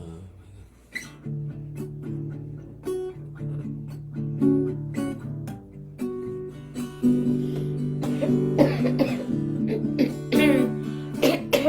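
Acoustic guitar plucked and strummed over a steady low drone, the instrumental opening of a kirtan chant. The playing grows louder and busier about seven seconds in.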